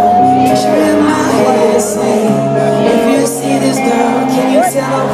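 Live band music at a concert: a male lead singer singing into a microphone over held keyboard chords, bass notes and regular percussion hits.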